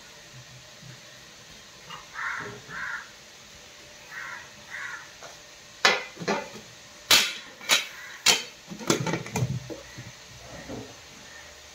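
A crow caws four times in two pairs. About six seconds in comes a quick string of sharp metal clanks and knocks from an aluminium steamer pot being handled on a gas stove and its lid going on.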